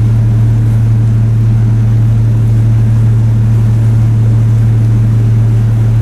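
Steady, loud, deep drone of a warship: one low unchanging tone with a fainter overtone above it and noise over the top.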